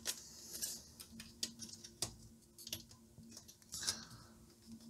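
Scattered light clicks and small knocks of hands working at the amplifier's metal chassis and clipped-on front panel, trying to free the panel. The clicks are irregular, with a few sharper ones about two seconds in and near the four-second mark.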